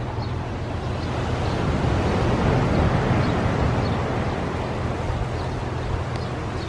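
Ocean waves washing ashore: a steady rush of surf that swells a little about halfway through.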